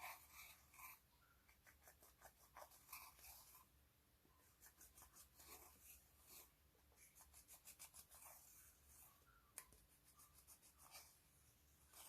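Faint sticky clicks and crackles of clear slime being squeezed and stretched by hand, coming in irregular runs of quick small pops.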